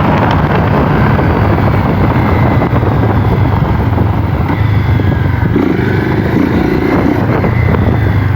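Honda CB 250F Twister's single-cylinder engine running steadily with its air filter removed entirely, giving an open, unfiltered intake sound.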